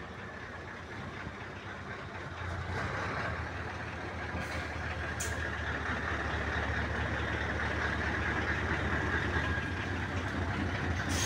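Scania 144L 530's V8 diesel engine running at low revs as the lorry rolls slowly past close by, growing louder as it nears. A steady whine joins the engine sound about three seconds in, and there is a short hiss about five seconds in.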